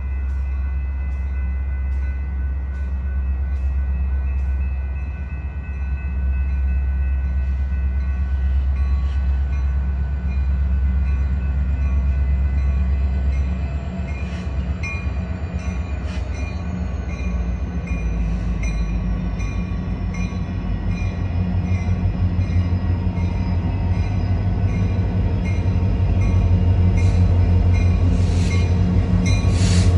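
Freight train on the rails: a Union Pacific diesel locomotive's low engine rumble grows louder in the second half as it approaches. Under it run evenly spaced wheel clicks and a steady high metallic whine.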